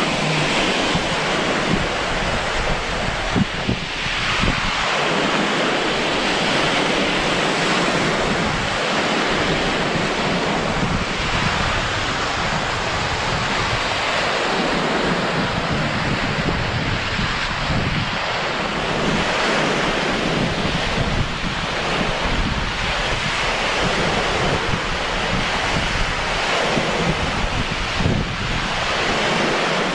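Small waves breaking and washing up a sandy beach, with gusts of wind buffeting the microphone.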